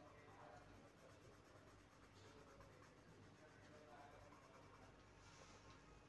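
Faint scratching of a coloured pencil shading on paper, with a couple of slightly louder strokes about two seconds in and near the end.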